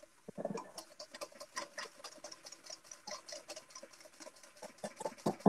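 Wire whisk beating egg yolks in a stainless steel bowl, making quick, regular clicks of the wires against the metal as the sabayon base for hollandaise is cooked. One louder knock comes near the end.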